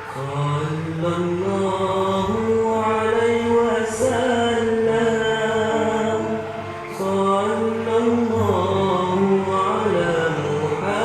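Background music: a chanted mantra, a voice holding long notes that step from pitch to pitch over a steady low drone.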